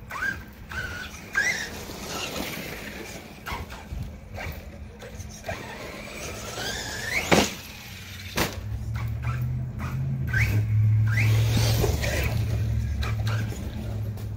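Redcat Landslide XTE electric RC truck running on 4S LiPo: its motor whines up in pitch with each burst of throttle. A sharp knock about seven seconds in, with a smaller one a second later, as the truck lands or hits something, and a low steady hum that is loudest through the second half.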